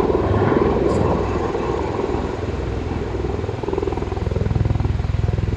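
Aircraft engine droning with a rapid, even pulse. It eases off slightly a couple of seconds in and grows louder again near the end.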